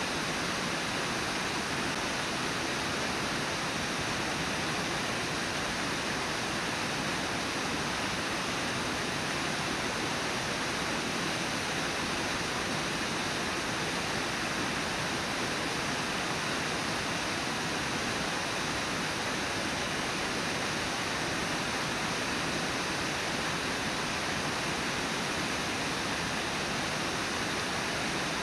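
Brooks Falls on the Brooks River: a steady, unbroken rush of water pouring over the falls.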